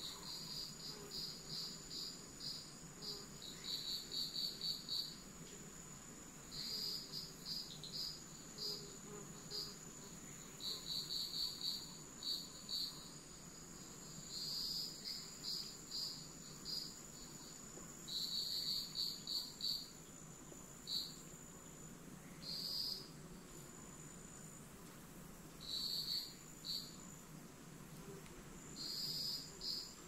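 Forest insects calling: bouts of rapid, high-pitched chirps every few seconds over a steady high trill, with a low even background hiss.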